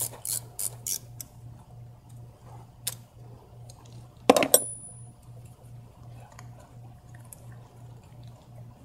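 Ratchet clicking about three times a second as the T30 Torx screws holding a VW 2.0T TSI high-pressure fuel pump are backed out. It stops a little over a second in. A single louder metallic clink follows about four seconds in.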